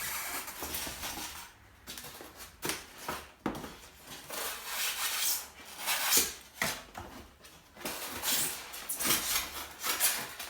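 Packaging and contents of a coffee machine box being handled: irregular rustling and scraping with a few sharper knocks.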